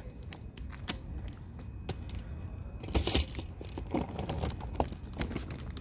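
Scattered knocks, clicks and rustling from a large bag being hauled down a staircase, with a cluster of louder knocks about three seconds in.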